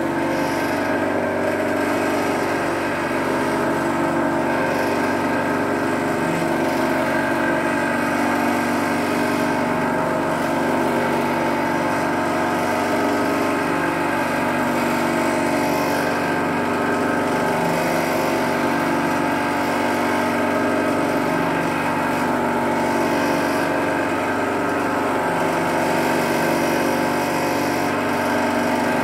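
Wei Jie WJ-30P embroidery thread winding machine running, its motor giving a steady hum made of several tones.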